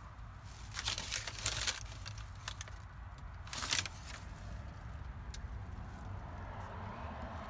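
Bursts of crinkling and rustling, like a paper bag being brushed, about a second in and again near four seconds, with a few light clicks after. Under them, a steady low hum of the truck idling, heard inside the cab.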